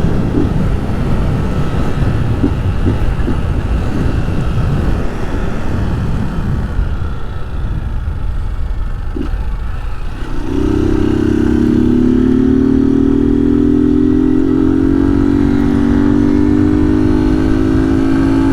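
Single-cylinder Honda Start 190 motorcycle engine, run without its air filter, pulling along under the rider with a rough rumble and wind on the microphone. About ten seconds in it rises to a loud, steady note held at high revs, which sags slightly in pitch toward the end.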